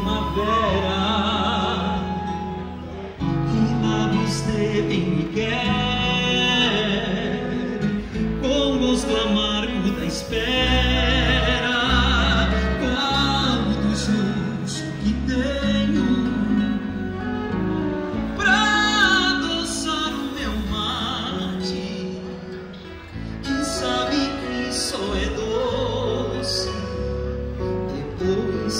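Live gaúcho regional folk song: a male voice sings with vibrato over nylon-string acoustic guitars, a transverse flute and an electric bass.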